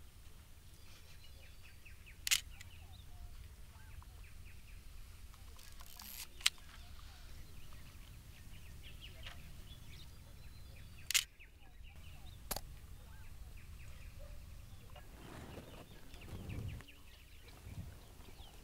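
Camera shutter clicking four times, a few seconds apart, the last two close together, over a faint outdoor background with small bird chirps.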